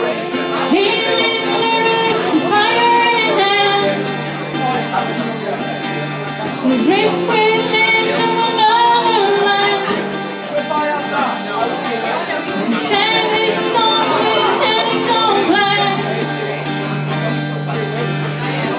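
A woman singing solo with her own strummed acoustic guitar, her sung phrases coming in lines with short guitar-only gaps between them.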